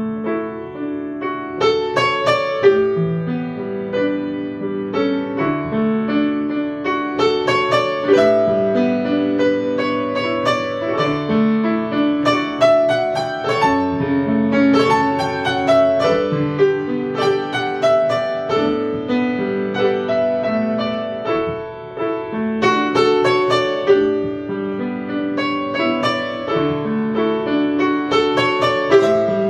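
Yamaha grand piano playing a piece by itself through its PianoDisc player system: a steady flow of melody and chords with no pauses. The self-playing shows the player system is powered and working on its repaired power supply.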